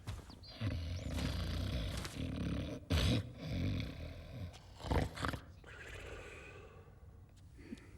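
A cartoon monster's roaring and growling, rumbling and loud from about half a second in, with two sharp heavy hits about three and five seconds in, then dying away to a quieter stretch.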